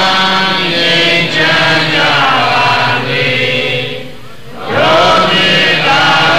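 Buddhist chanting of Pali verses in a steady, level recitation, with a short pause for breath about four seconds in.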